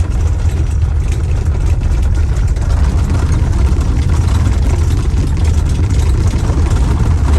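Cabin noise of an off-road tour vehicle driving on a volcanic sand track with its tires deflated: a steady engine and tire rumble, heaviest in the low end.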